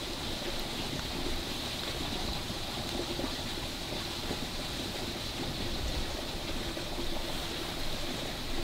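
A steady rushing hiss of outdoor background noise, even in level throughout.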